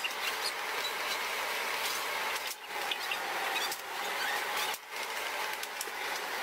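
Steady hissing background noise of a busy commercial kitchen, with a few faint knife taps on a cutting board as grilled beef is sliced. The noise cuts out briefly twice.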